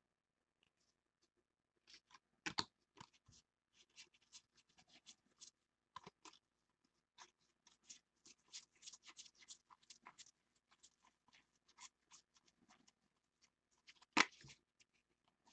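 Faint, irregular crackling and ticking of trading cards being handled, with a sharper snap about two and a half seconds in and the loudest one near the end.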